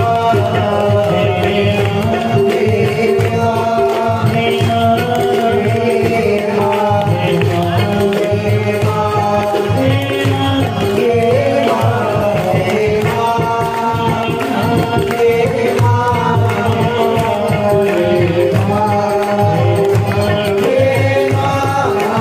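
Hindu devotional singing, aarti-style, with a steady drum beat under the voices.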